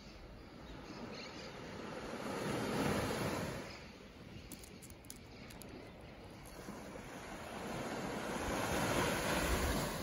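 Small waves of a calm sea washing onto a sandy beach. The surf swells and fades twice, about three seconds in and again near the end.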